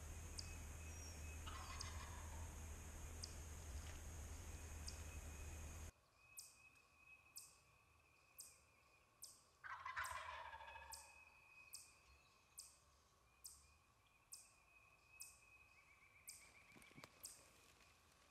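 Wild turkey gobbler gobbling twice: a faint gobble about a second and a half in, then a louder one about ten seconds in, each a rattling call that falls in pitch.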